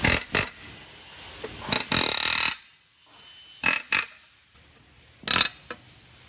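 Pneumatic air hammer fired in short bursts against the cast tabs of a Toyota 7.5-inch clamshell differential case, knocking the case halves apart off their locating dowels. About six or seven short blasts, the longest about half a second near two seconds in, with quiet gaps between.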